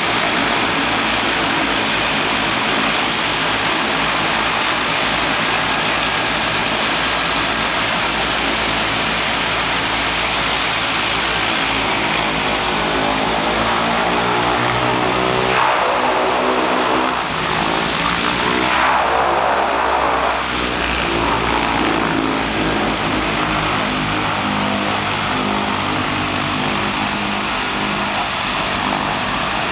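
Twin Pratt & Whitney Canada PT6A turboprop engines of a de Havilland Canada DHC-6 Twin Otter floatplane running at taxi power: a steady high turbine whine over propeller noise. Midway the tone wavers up and down for several seconds as the plane pulls away from the dock and taxis out.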